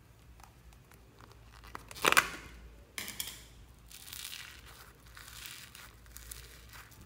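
The plastic lid of a slime tub is pulled off with a sharp noisy burst about two seconds in, and a second sharp sound follows a second later. Fingers then poke into and pull apart crunchy yellow foam-bead slime (floam), making a run of rustling, crinkly crunches.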